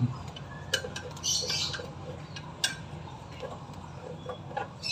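Screwdriver clicking and tapping against the metal housing and screws of a Shimizu water pump: a few sharp, separate clinks, with a short scrape about a second and a half in.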